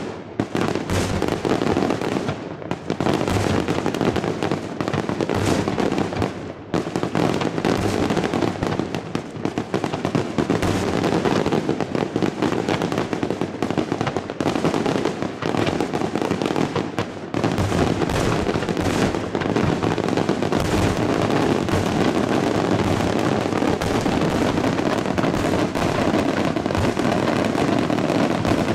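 Daytime fireworks display: a dense, continuous barrage of rapid, overlapping bangs and crackling from aerial bursts, with brief lulls about two and a half and six and a half seconds in.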